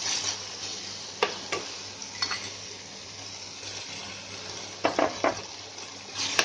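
Garlic-chilli chutney with onion and potato sizzling in hot oil in a frying pan, being roasted and stirred with a spoon. The spoon knocks against the pan now and then: a few knocks in the first couple of seconds and a quick cluster about five seconds in.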